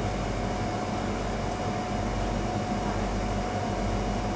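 Bakery machinery running with a steady, even hum and a constant whine, unchanged throughout.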